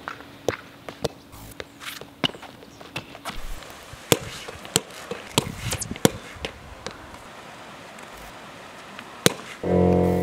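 A Spikeball ball slapped down by hand onto the small round trampoline net and bouncing off it: a string of sharp, irregular slaps and taps. Near the end a short, loud pitched buzz lasting about half a second.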